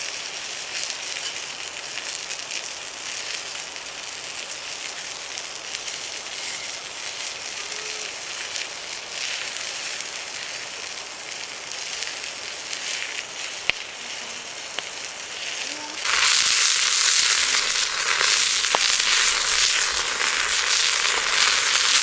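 Cooking fire crackling and sizzling, a dense hiss full of tiny pops. It jumps much louder about 16 seconds in.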